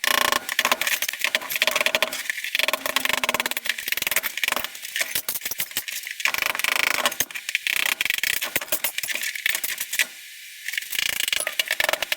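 Ceramic wall tile being broken off with hand tools: a dense run of sharp clinks, knocks and scrapes as tile shards crack and fall.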